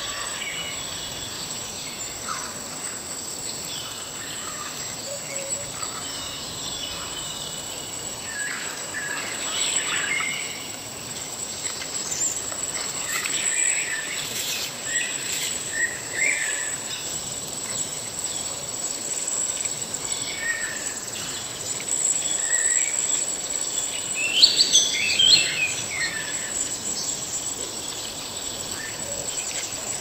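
Forest ambience: insects keep up a steady high-pitched drone, and birds chirp and call here and there, busiest about three-quarters of the way through. Underneath is a soft, even wash of falling water.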